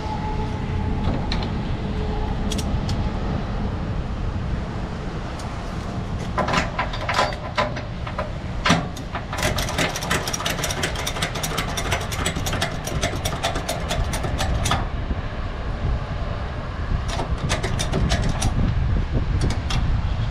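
Ratchet on a wheel strap being cranked tight around a tyre: a long run of rapid clicks starting about a third of the way in, and another short run near the end, over a steady low rumble.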